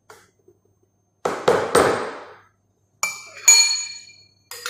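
Kitchen containers and utensils being handled: three dull knocks about a second in, then two ringing clinks.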